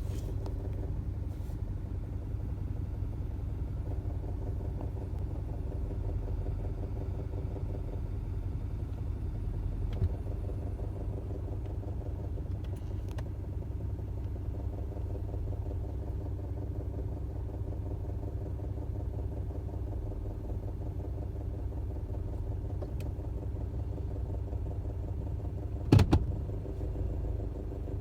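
2013 Subaru Forester 2.5XT's turbocharged flat-four engine idling, heard from inside the cabin: a steady low rumble with the rough idle the owner is showing. A single sharp knock near the end.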